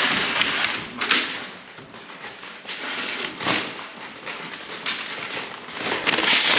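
Rustling and crackling of potato bags being handled, filled and tied, with louder scrapes about a second in, halfway through and near the end.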